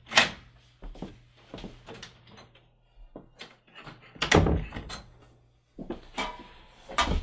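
Scattered knocks and thumps of a person moving into a small room and up to the camera: a sharp knock just after the start, a heavy thump about four seconds in, and more knocks near the end, over a faint steady low hum.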